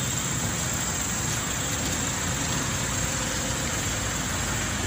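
Steady noise of vehicle engines and traffic, with no distinct events.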